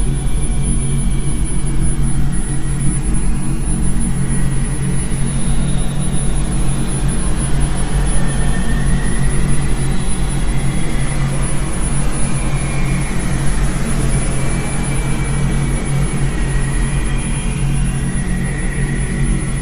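A loud, steady low drone, with faint wavering high tones drifting slowly up and down above it.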